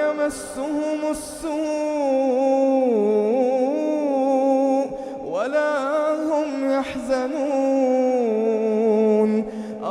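A man's voice chanting Quranic recitation in long, drawn-out melodic phrases: two phrases, the second starting about five seconds in.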